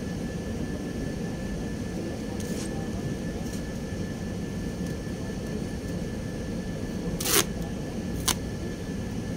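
Steady low machinery drone with a thin high whine held on one note. Two short sharp sounds, about a second apart, come near the end; the first is the louder and slightly longer.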